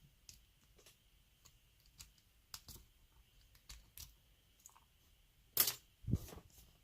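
Light scattered clicks and taps of small metal parts and tools being handled while a padlock cylinder is taken apart, with two louder knocks about five and a half and six seconds in.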